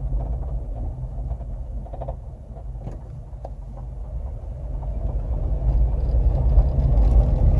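A 2009 Honda Civic on the road, heard from inside: a low road and engine rumble that gets quieter toward the middle and louder again toward the end. Faint short ticks and light squeaks come through it, the squeaky-bed-like noise the car makes when braking lightly.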